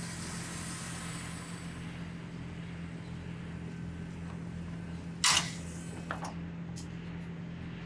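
A steady low hum, with one sharp, short clack about five seconds in and a fainter knock under a second later.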